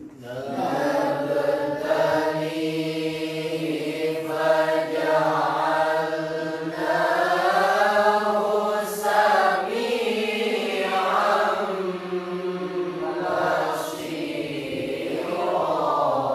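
A man's voice reciting the Quran in the melodic mujawwad style into a handheld microphone. It is one long unbroken ornamented phrase whose pitch climbs toward the middle and sinks back.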